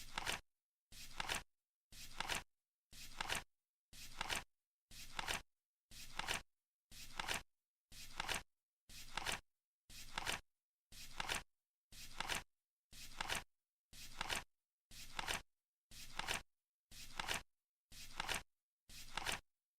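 Flip-clock timer sound effect: a short swish of the flip card, rising to a sharp stop, repeating evenly once a second with dead silence between.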